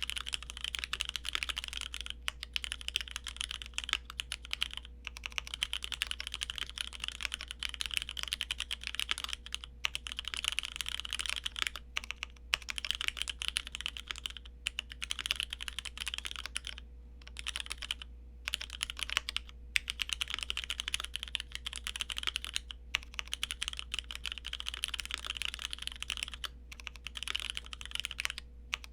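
Keychron Q1 mechanical keyboard with Cherry MX Black linear switches on the stock plate, fitted with an aftermarket tuning kit, being typed on fast in a continuous run of keystrokes broken by a few short pauses.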